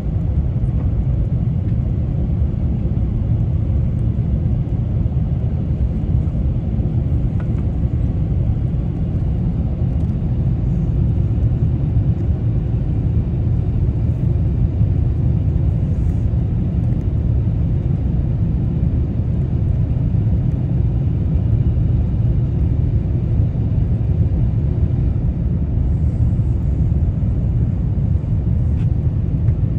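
Steady, even cabin rumble of a Finnair airliner in flight on its approach, the noise of the jet engines and the airflow heard from inside the cabin, deep and without change.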